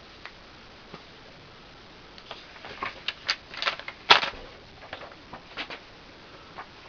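Handling noise: a scattered run of light clicks and taps, the loudest a sharp click about four seconds in.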